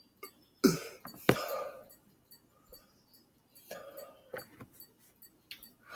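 A man's short throat sounds: two sharp ones just under a second in, the second trailing off briefly, then a few fainter ones around four seconds in.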